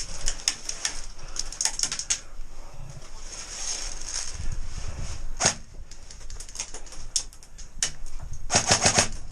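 Airsoft guns firing: quick runs of sharp cracks, in short bursts, with a dense burst near the end.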